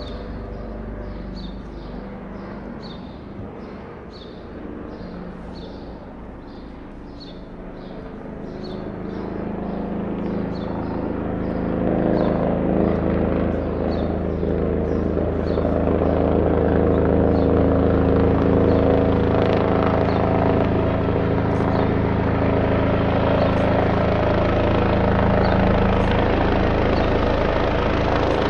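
Airbus H145 rescue helicopter approaching: its rotor and turbine sound rises from faint to loud over the first half and then holds steady, with a steady hum made of several tones.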